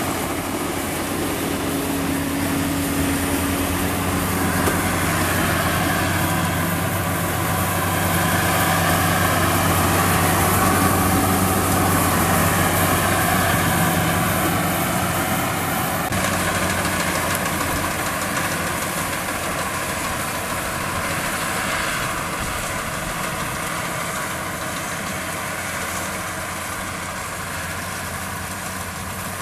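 Combine harvester engine running steadily: a continuous drone under a broad mechanical rush.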